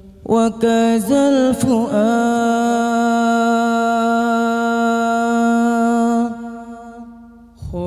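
Solo male voice singing an unaccompanied sholawat phrase into a microphone: a short ornamented run, then one long held note of about four seconds that fades away, with the next phrase starting at the very end.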